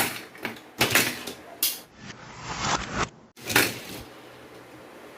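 Hot Wheels die-cast toy cars and plastic track clattering: a series of short clacks and rattles, about one a second, then only a faint steady hiss near the end.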